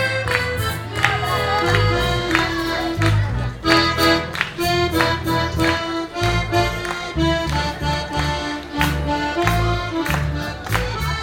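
Live folk band music led by an accordion playing a lively, even-tempo dance melody, over a pulsing bass line, guitars and steady percussion.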